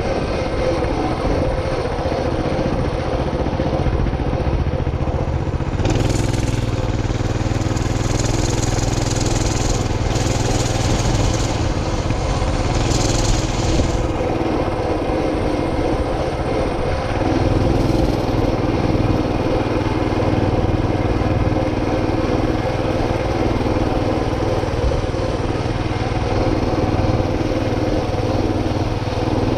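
Motorcycle engine running steadily while riding slowly along a road.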